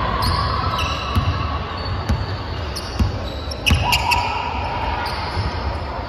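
A basketball bounced on a hardwood gym floor, a few sharp bounces about a second apart, with short high sneaker squeaks from players moving on the court. The gym is large and echoing.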